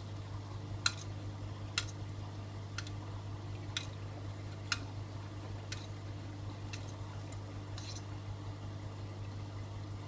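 AEG Öko-Lavamat 88840 front-loading washing machine filling with water, typical of the fabric-softener rinse: water runs into the drum over a steady low hum. Light clicks come about once a second for the first eight seconds.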